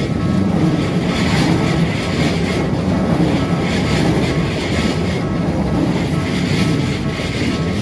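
Keikyu electric train running past the level crossing: a loud, steady rumble of wheels on rails with a faint steady whine.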